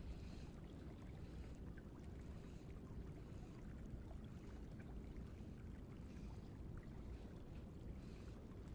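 Faint, steady rush of flowing river water, with a few light ticks.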